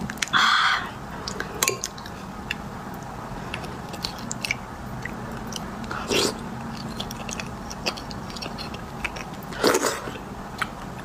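Close-miked eating sounds: chewing and sucking soft beef bone marrow, with many small mouth clicks. Three louder wet bursts stand out: a long one about half a second in, and shorter ones around six seconds and near the end.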